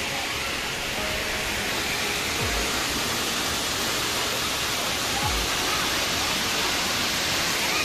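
Stream water rushing steadily over a low concrete weir, a continuous even sound of whitewater.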